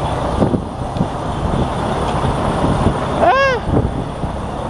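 Freightliner Cascadia semi-truck's diesel engine idling with a steady low rumble. About three seconds in there is a short voice-like tone that rises and falls.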